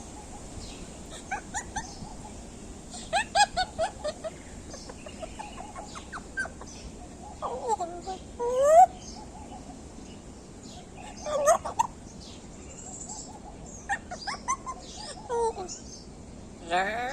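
Pet parrot vocalizing in scattered bursts: clusters of short chattering notes and several rising whistle-like calls, the loudest about nine seconds in.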